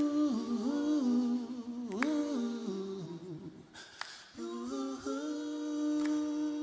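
A voice humming a slow wordless melody: a long held note, a short phrase stepping downward, a brief break about four seconds in, then another long held note.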